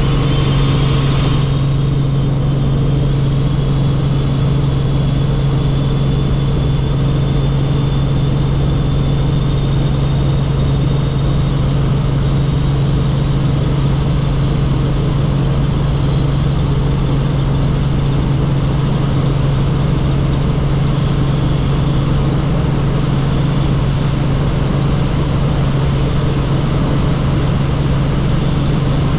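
Helicopter running steadily in flight: a constant low drone with a faint high whine above it.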